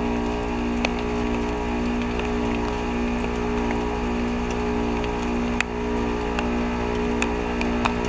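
A Ruud Achiever RP14 heat pump running its defrost cycle: a steady compressor hum with several held tones, the outdoor fan stopped. Scattered sharp ticks and water dripping come from the ice melting off the coil.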